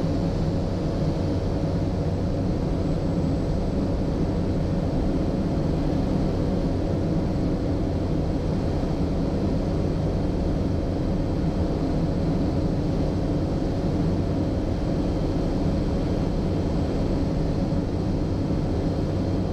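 Cessna 208B Caravan's Pratt & Whitney PT6 turboprop engine and propeller running steadily, heard inside the cockpit: an even drone with a few faint steady tones above it.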